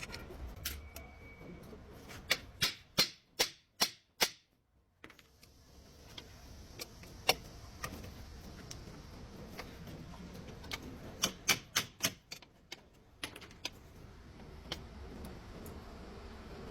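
Sharp metallic clicks and taps of hand tools being worked on car suspension parts: a quick run of about six clicks a few seconds in, then scattered single clicks and a short cluster later.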